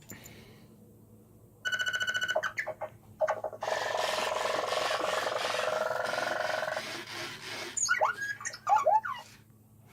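WowWee Roboquad toy robot powering on: a short burst of electronic beeps, then a steady whir for about three seconds, then a few short chirping sounds near the end.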